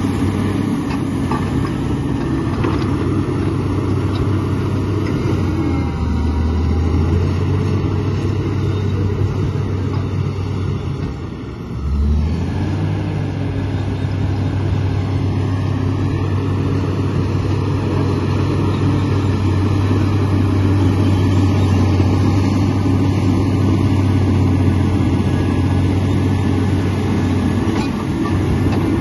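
Komatsu D85 crawler bulldozer's diesel engine running steadily under work with a deep drone. It dips briefly about eleven seconds in, then picks back up.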